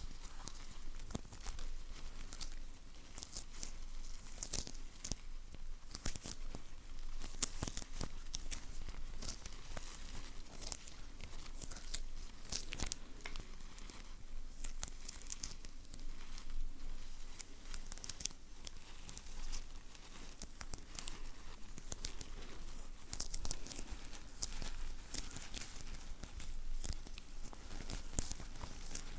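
Close-miked ASMR sticky sounds: a sticky material being pressed and peeled, giving a continuous run of irregular crackles and small tearing noises.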